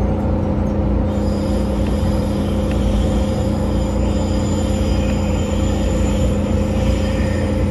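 Electric train running at speed, heard from inside the passenger car: a steady rumble of wheels on rail with a constant low hum.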